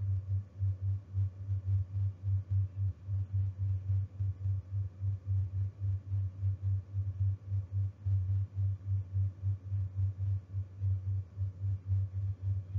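A low, pulsing hum, beating evenly about four times a second, with no speech over it.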